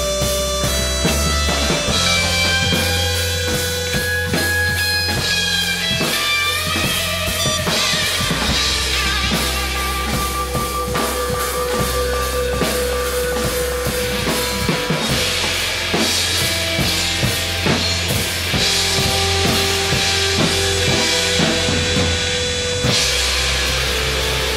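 Rock band music with no singing: a drum kit with bass drum and snare hits, a deep held bass line, and sustained guitar and keyboard notes, a few of them bending in pitch.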